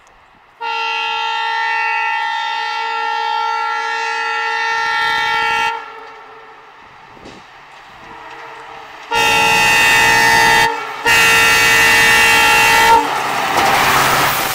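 Horn of an oncoming Indian Railways WDP4D diesel locomotive, a chord of several tones: one long blast of about five seconds, then after a pause two shorter blasts in quick succession. Near the end the horn gives way to the rushing, rumbling noise of the train passing close by at speed.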